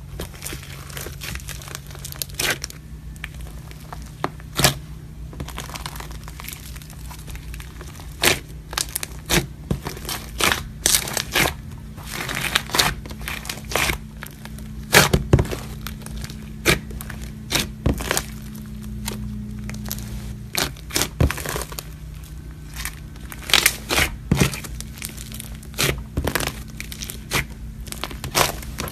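Fluffy slime mixed with foam beads being squeezed, stretched and pressed by hand, giving irregular sharp crackles and pops.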